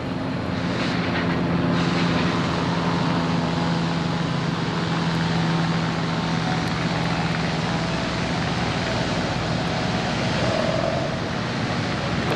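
Sawmill machinery running with a loud, steady drone made of several held tones, which eases a little about two-thirds of the way through.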